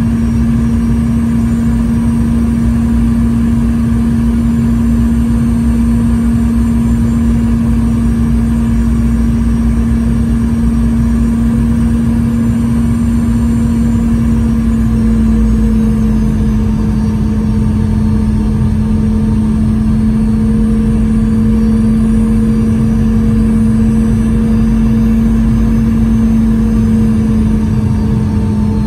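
Cabin noise of a Boeing 717-200 on approach, heard from a seat beside its rear-mounted Rolls-Royce BR715 turbofan engines: a loud, steady drone with a low hum over a deep rumble. The engine tone steps down slightly in pitch about halfway through.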